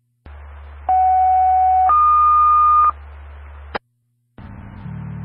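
Two-tone paging alert over a fire dispatch radio channel. A steady lower tone sounds for about a second, then a higher tone for about a second, with radio hiss and hum around them. The transmission ends in a squelch click, and another transmission keys up with a low hum near the end.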